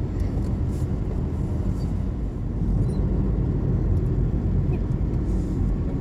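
Steady low rumble of a car driving along a city street, heard from inside the cabin.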